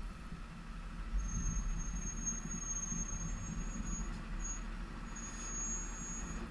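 Harley-Davidson Softail's V-twin idling with a steady low rumble, and a thin high squeal over it that starts about a second in, breaks off briefly and returns.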